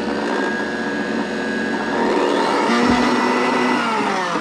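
Blendtec jar blender's motor running loud, churning a thick mix of raw chicken liver and vegetable pulp. Its sound changes about halfway through, and near the end its pitch falls as it winds down.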